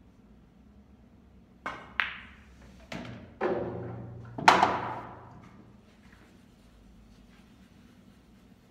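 Pool balls in play on a billiard table: sharp clicks of the cue tip and balls striking each other and the cushions, then a rolling rumble and the loudest clack about halfway through, fading over about a second.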